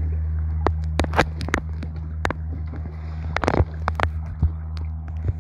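Plastic dry bag crinkling and clicking at irregular moments as the phone inside it is handled, over a steady low rumble.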